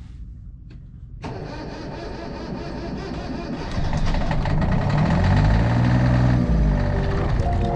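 Sailing yacht's engine starting about a second in and running, with its pitch rising and falling briefly a little past the middle. Steady musical tones come in near the end.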